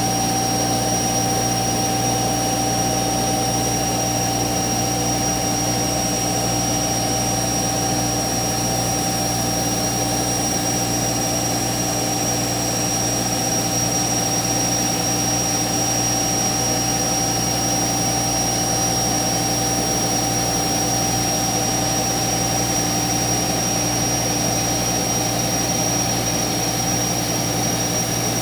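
CNC router running: a loud, steady machine hum and noise with a fixed high-pitched whine, unchanging throughout.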